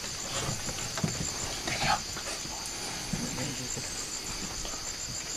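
Forest insects singing: a steady high-pitched chorus with a faint note pulsing about five times a second.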